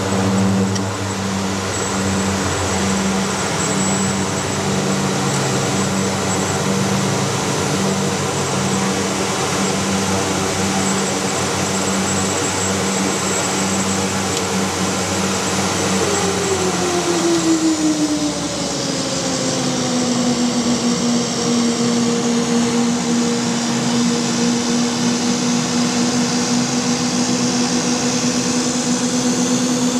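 Twin Garrett TPE331 turboprop engines of a Mitsubishi MU-2 running steadily, heard from inside the cockpit while the aircraft rolls on the ground after landing. A slow throbbing beat in the first half; a little past halfway the engines' pitch falls over a few seconds and settles into a steady lower whine as they are brought back in speed.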